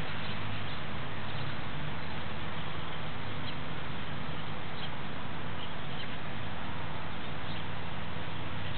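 Steady hiss and low hum with a few faint, short high-pitched chicken calls scattered through it.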